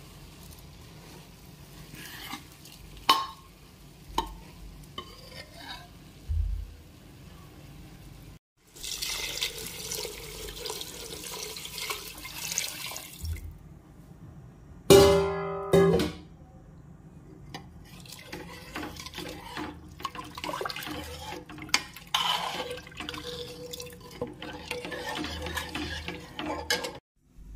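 A metal ladle clinking and scraping in a pan of onion-tomato tadka, then a rushing pour as the boiled dal and water go into the pan, followed by the ladle stirring the liquid dal. Just after the pour comes the loudest sound, a brief pitched tone lasting about a second.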